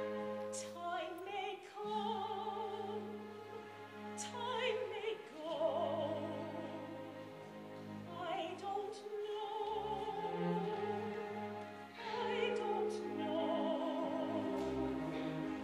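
Live opera music: orchestral accompaniment with held low notes under a wavering vibrato melody line that comes in several phrases.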